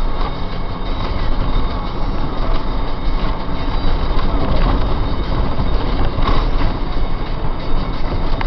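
Vehicle driving on a rough, patched asphalt country road: a steady, loud rumble of tyres and engine, with a couple of brief knocks from bumps in the road.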